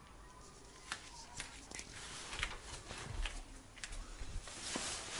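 Handling noise from a carried camera, with footsteps on a laminate floor: scattered sharp clicks and soft low thumps, then a breathy hiss near the end.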